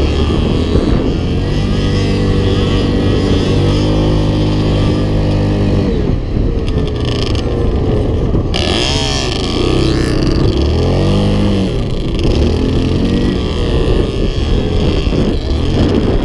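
A Yamaha Grizzly 700 quad's single-cylinder four-stroke engine runs under way, its revs rising and falling repeatedly as it is ridden over a sandy dune track.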